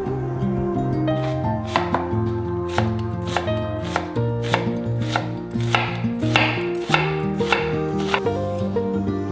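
Knife chopping on a cutting board in steady strokes, two to three a second, starting about two seconds in, over background music.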